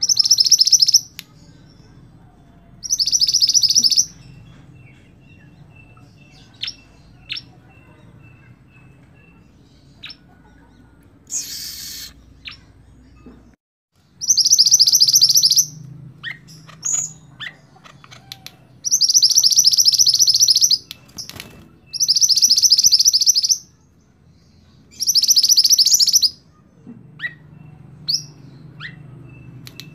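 Mantenan (red-and-black flowerpecker) singing: loud, high, rapid trilled phrases of one to two seconds, given about six times with pauses between, and faint short chips in the gaps. A rolling, bursting song used as a master recording for training other songbirds.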